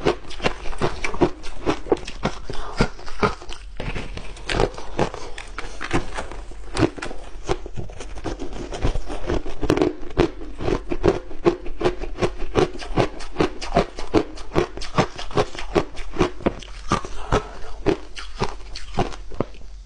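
Ice being chewed close to a lapel microphone: dense, irregular crunching several times a second.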